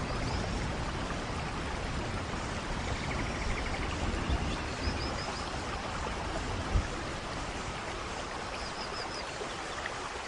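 Steady rain falling, with a single brief thump about two-thirds of the way in and a few faint high chirps twice.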